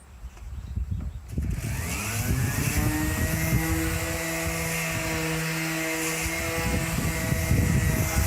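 Electric sander starting about a second in, its motor whine rising in pitch as it spins up, then running at a steady speed with a hiss of abrasive working over the bare steel bumper.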